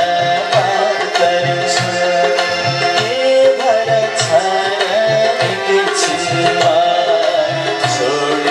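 Nepali devotional bhajan music: tabla playing a steady rhythm under a harmonium and electronic keyboard melody.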